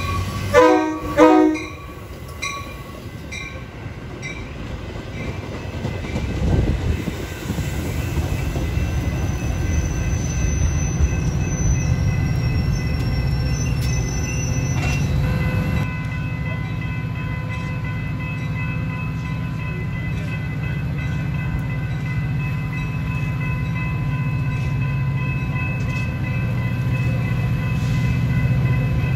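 Metra bi-level commuter train giving two short horn blasts, then rolling past with a steady low rumble of wheels on rail that grows louder toward the end. A thin high squeal runs for a few seconds midway.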